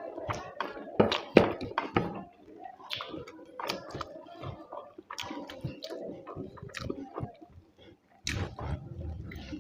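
Close-up wet chewing and lip smacking of a person eating mouthfuls of rice with fish and egg curry, a rapid irregular run of clicks and squelches.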